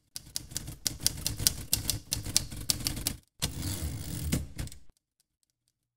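Typewriter keys clacking in a quick run, about five strikes a second. After a short pause comes a denser, noisier stretch of typing, which stops about five seconds in.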